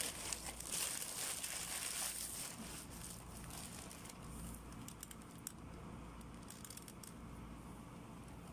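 Thin plastic carrier bag crinkling and rustling as it is pulled open around a takeaway meal, loudest in the first two seconds or so, then only faint scattered crackles.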